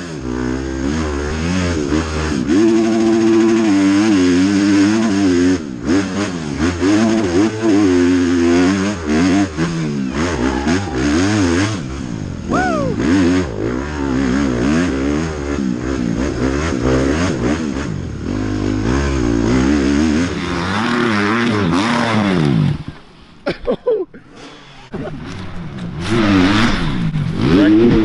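Dirt bike engine revving up and down over and over as the rider works the throttle and gears along the trail, heard from on the bike. Near the end the sound drops away for a couple of seconds, then engine revving comes back.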